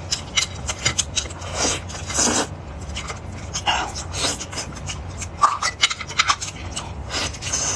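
A cooked lobster picked apart by hand and with a fork: irregular crackles and clicks of shell and utensil with bits of scraping, plus eating noises, over a steady low hum.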